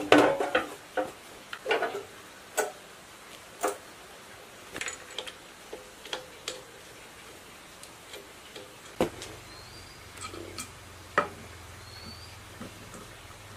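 Clicks and light metal knocks of parts being fitted by hand onto a diesel engine. A quick run of them comes at first as the sheet-metal cover is pressed into place, then scattered single taps follow.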